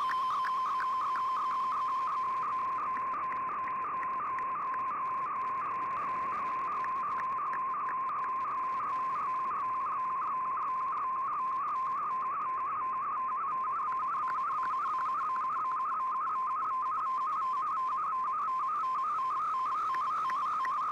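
MFSK picture transmission from a shortwave data broadcast heard through the receiver: a steady warbling data tone near 1 kHz with a rapid, regular flutter, over an even background hiss. This is the sound of a colour image being sent line by line.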